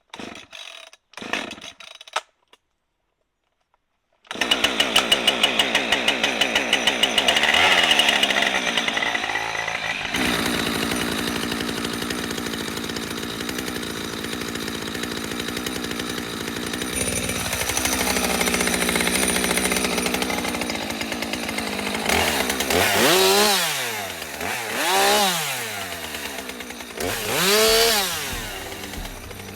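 Husqvarna 550 XP two-stroke chainsaw running at high revs while cutting back holly and branches, starting about four seconds in after a brief gap. Near the end the revs drop and rise again several times.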